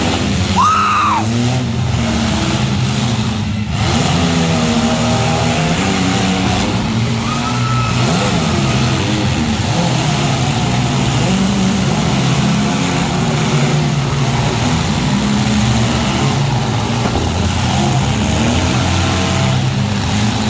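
Several compact demolition derby cars' engines running and revving at once, rising and falling throughout. There are two short squeals, one near the start and one about seven seconds in.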